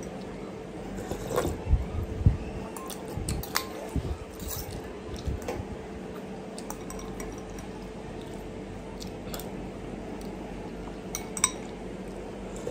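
Metal spoon and fork clinking and scraping against a glass bowl of rice noodle soup, with soft sounds of eating. The clinks are scattered, busiest in the first couple of seconds, and one sharp clink comes near the end.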